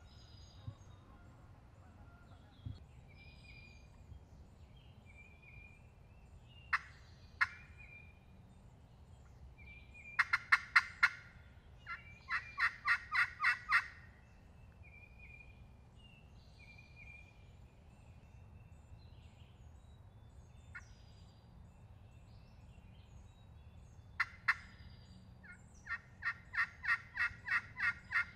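Wild turkey calling in runs of loud, evenly spaced notes. Two single notes come about seven seconds in, runs follow from about ten to fourteen seconds in, and another run starts near twenty-six seconds and goes to the end. Small songbirds chirp faintly throughout.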